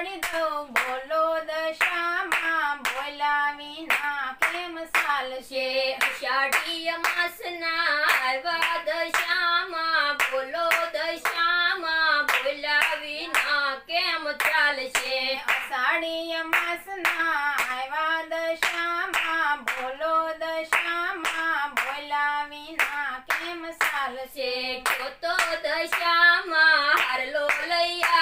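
A Gujarati devotional song to Dasha Maa, sung by a single unaccompanied voice over steady hand claps about twice a second.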